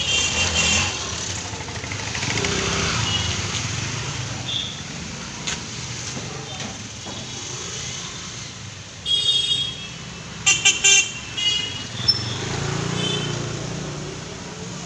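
Street traffic: the engines of an auto-rickshaw and motor scooters passing, with vehicle horns honking, once at the start and then in a run of short toots from about nine to thirteen seconds in.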